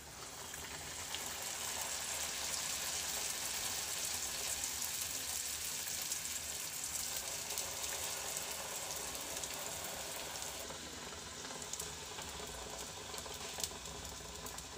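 Bhatura dough deep-frying in hot refined oil, a dense sizzle and crackle that starts as the dough goes in and eases off slightly after about ten seconds. A few light clicks come near the end.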